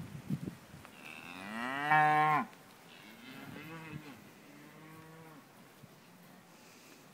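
Cattle mooing: one long, loud moo that rises in pitch and then holds before stopping sharply, followed by two quieter moos. A few brief knocks at the very start.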